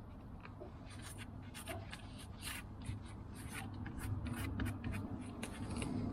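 Hands working on a newly fitted brake caliper: a run of short, irregular scratchy scrapes and clicks, starting about a second in.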